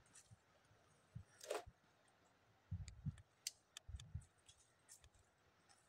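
Faint scattered snaps and clicks of a leafy mango branch being broken off and handled, with a short swish about a second and a half in and a few soft footfalls on dry ground near the middle; otherwise near silence.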